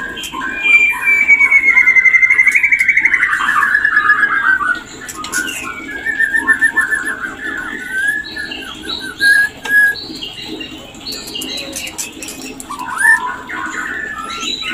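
White-rumped shama (murai batu) mating call: a long, rapid, loud trill that slowly falls in pitch over about four seconds, then a shorter trill and a few scattered whistled notes.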